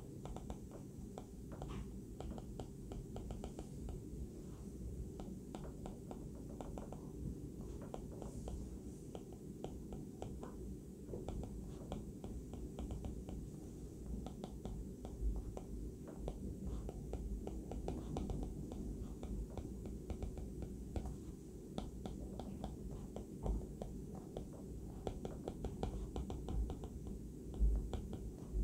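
Stylus tip tapping and scratching on a tablet's glass screen during handwriting: an uneven run of faint light ticks over a low steady hum.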